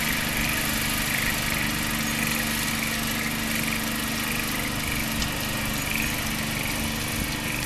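Rice transplanter's small engine running steadily.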